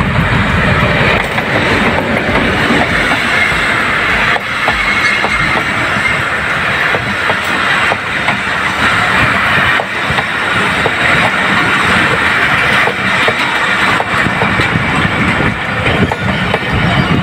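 Diesel-hauled passenger train arriving at a station platform and running close past. The locomotive's engine rumbles by in the first second or so, then the coaches roll past with a steady clatter of wheels clicking over the rail joints.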